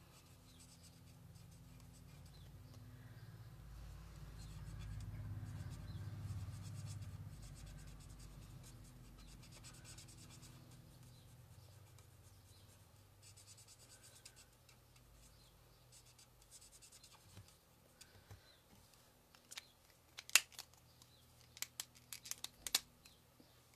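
Crafting tools handled on a tabletop: faint scratching and rubbing on paper, with a low rumble that swells and fades in the first half. Near the end comes a quick run of sharp clicks and taps.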